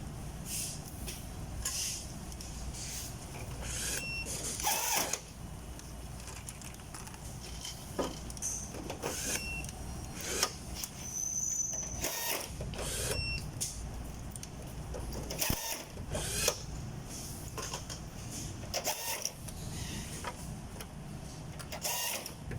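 Steady low machinery rumble with irregular knocks and clanks scattered through it, and a few short high beeps.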